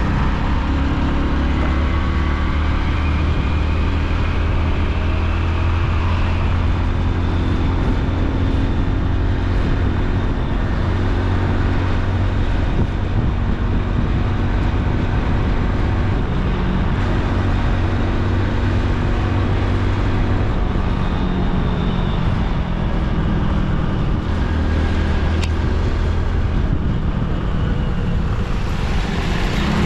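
Motorcycle riding at road speed, its engine running steadily under heavy wind noise on a helmet-mounted action camera's built-in microphone.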